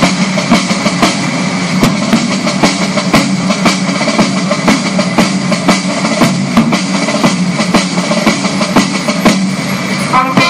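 Music with a steady drum beat, about two to three strokes a second, over held tones.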